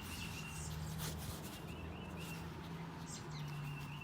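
Small birds chirping in short repeated calls over a low, steady hum.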